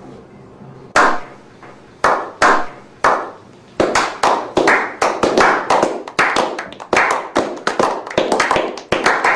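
A slow clap: single hand claps about a second apart, then more people join in and the clapping quickens into dense applause by a small group.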